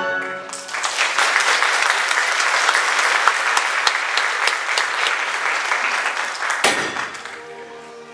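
Audience applauding with many hands clapping. The applause dies away about seven seconds in as orchestral music begins.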